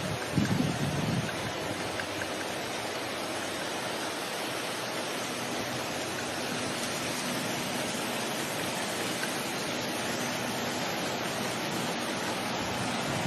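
Steady rushing noise, with a few low rumbles in the first second.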